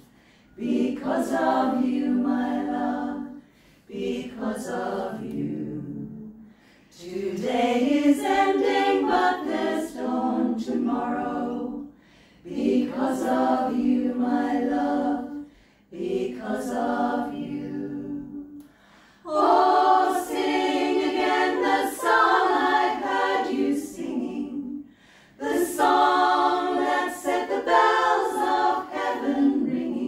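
Small women's a cappella choir singing together in phrases of a few seconds, each broken off by a short pause for breath.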